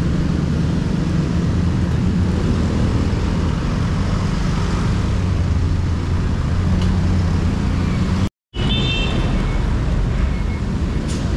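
Steady road-traffic noise with wind rushing over the microphone while cycling along a city road. About eight seconds in the sound drops out completely for a moment, then comes back with a short high-pitched tone.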